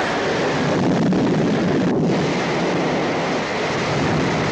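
Loud, steady rushing roar of surging sea water and wind, a sound effect for the churning undersea palace.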